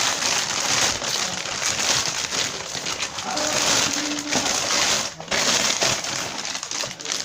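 Plastic packaging crinkling and crackling as a parcel is handled and opened, with a brief break about five seconds in.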